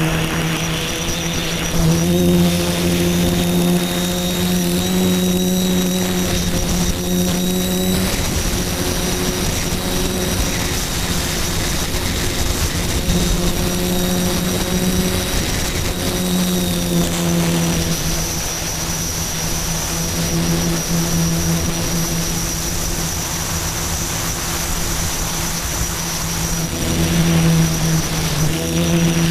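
Quadcopter's electric motors and propellers droning steadily, heard from on board, with the pitch shifting up and down a little as the throttle changes and a thin high whine over it. This is the maiden flight of new motors and ESCs.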